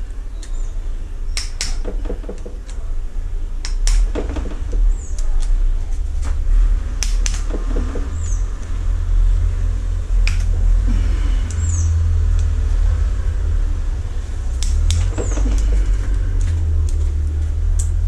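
Scattered sharp metal clicks and clinks of hand tools working the bolts out of a motorcycle engine's clutch side cover, over a steady low hum. A bird gives a short, high, falling chirp every few seconds.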